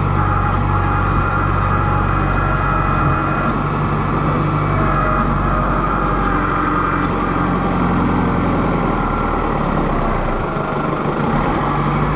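Kubota M6060 tractor's diesel engine running steadily close up, from the operator's seat, easing off slightly near the end.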